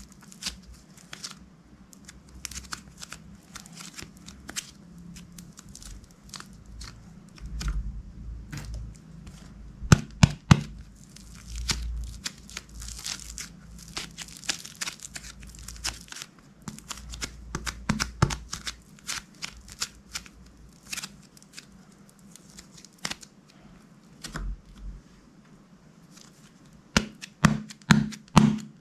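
Hands stretching, pressing and folding clear slime, giving off irregular sticky clicks, crackles and tearing sounds, with a run of louder pops near the end.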